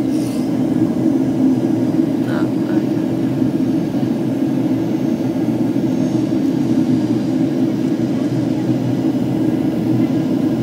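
Steady jet engine roar of a Boeing 757-300 with Rolls-Royce engines, heard inside the passenger cabin as a low, even drone.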